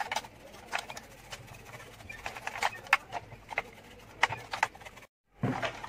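Soft makeup brush sweeping dust off a plastic toy locomotive, with irregular light taps and knocks as the toy is handled and turned over.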